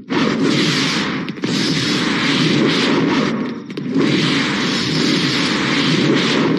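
Loud rushing, rumbling whoosh, a dramatic film sound effect, in three long surges of a couple of seconds each with brief dips between.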